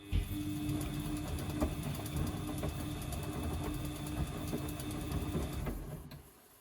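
Washing machine motor starting up, running for about six seconds with crackling over its hum, then stopping. The crackle is taken for worn motor brushes or a failing motor.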